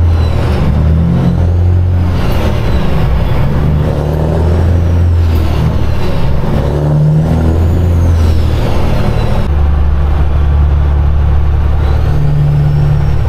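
Semi truck's diesel engine heard from inside the cab, running under load as the truck drives, its drone changing pitch several times as it pulls and shifts.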